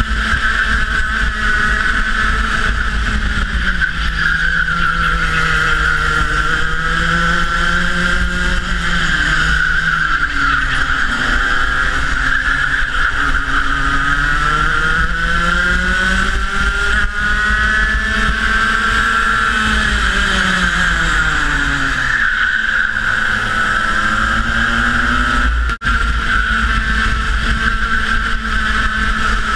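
Rotax Max 125cc two-stroke kart engine running flat out in a race, its pitch climbing along the straights and dropping as it slows for corners, several times over. The sound cuts out for an instant near the end.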